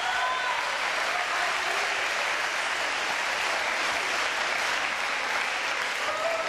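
Crowd of spectators applauding steadily at the end of a trampoline team routine.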